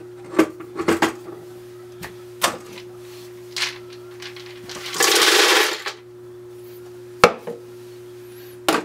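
Roasted peanuts poured from a container into a Ninja blender's empty plastic jar: a dense rattling rush lasting about a second, midway through. Around it are a few sharp clicks and knocks from the jar and the container being handled, over a steady hum.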